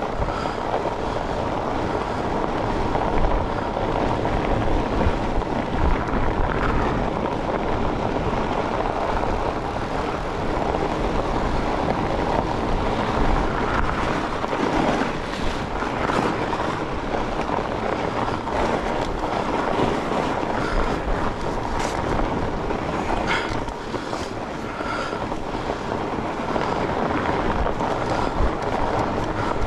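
Steady rushing noise of a fat bike ridden over a frozen, rutted trail: the wide tyres rolling and wind over the microphone, with a few sharp clicks and knocks from the bike about two-thirds of the way through.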